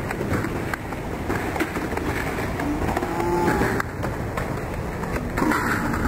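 Skateboard wheels rolling on concrete, with a few sharp clacks and knocks of the board.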